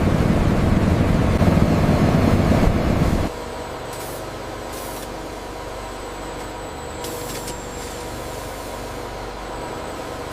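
Industrial machinery: a loud rushing noise that cuts off about three seconds in, then a lower steady machine hum broken by a few short hisses.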